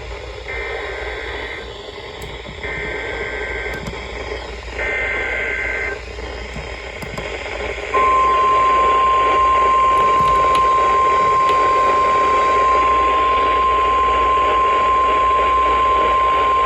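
Emergency Alert System SAME header: three bursts of two-pitch digital data chirping, about a second each, heard over radio hiss. About 8 seconds in comes the single steady NOAA Weather Radio 1050 Hz warning alarm tone, louder than the data bursts, signalling that a warning message follows.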